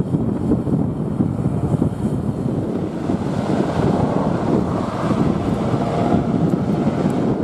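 Strong wind buffeting the camera microphone, a steady rough rumble.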